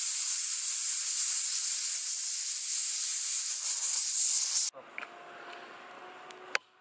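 Pressure cooker venting steam in a loud, steady hiss, which cuts off suddenly about four and a half seconds in. A much quieter stretch follows, with a single sharp knock near the end.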